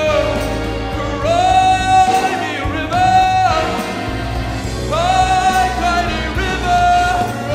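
Male crooner singing live into a handheld microphone, backed by a band, holding several long sung notes.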